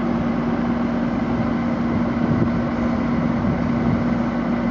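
A large vehicle engine running steadily with a constant hum, under a steady hiss.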